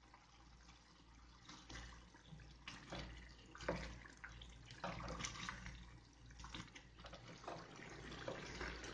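Lamb liver and masala frying in oil in a stainless steel pan: a faint sizzle as a silicone spatula stirs and scrapes through the thick gravy in irregular strokes, starting about a second and a half in.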